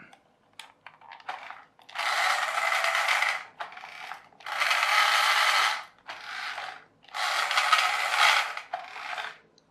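Small electric motor and plastic gearbox of a wired remote-control toy car whirring and grinding in three bursts of about one and a half seconds each, with shorter, quieter bursts between them, as the controls are pressed. The car runs with only one wheel driving.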